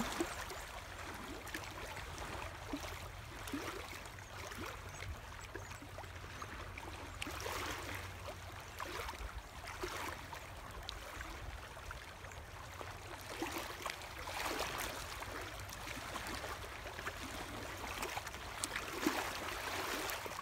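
Small lake waves lapping and splashing at a shallow, rocky shoreline: a steady wash of water that swells every few seconds.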